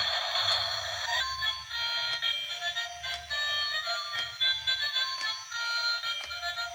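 Music: a bright, synthesized-sounding melody of short stepped notes.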